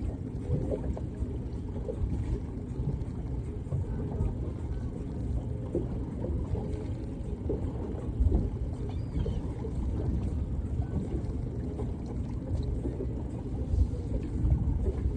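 Boat motor running with a steady low rumble.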